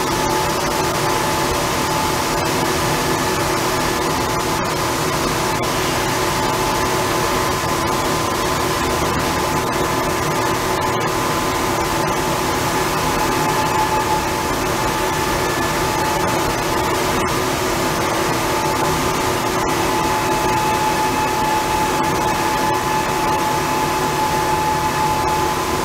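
Steady industrial machinery noise in a paper-converting hall: an even mechanical hiss with several steady hums and a higher whine, unchanging.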